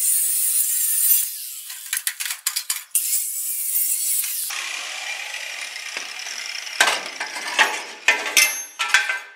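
Makita 4.5-inch angle grinder with a thin Osborn cutoff wheel cutting through a rusted-on exhaust pipe: a high grinding noise with a wavering whine as the wheel bites, cut in a few stretches with a stutter around two seconds in. Near the end come several sharp metallic knocks.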